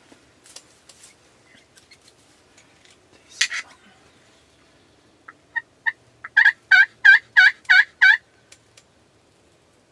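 Turkey calling: one short, loud gobble-like burst about three and a half seconds in, then a run of yelps. A few spaced notes build into about six loud yelps, each about a third of a second apart.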